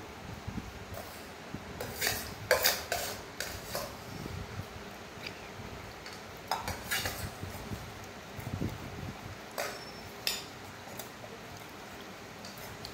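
Stainless steel bowl clinking and scraping as a toddler eats from it with his fingers and pushes it on the floor: scattered groups of sharp metallic knocks, the loudest about two and a half seconds in.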